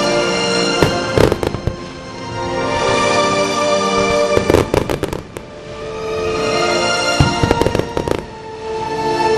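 Aerial fireworks bursting in three volleys of rapid bangs and crackles, about a second in, around the middle, and near the end, over music playing throughout.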